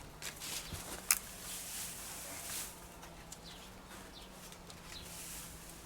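Small birds chirping faintly in short, falling calls, with a single sharp click about a second in.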